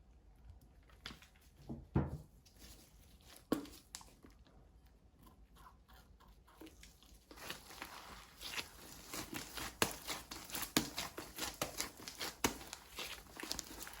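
Hands stretching and squeezing slime, making sticky pops and crackles. There are a few sharp pops in the first few seconds, then a dense run of crackling from about halfway on.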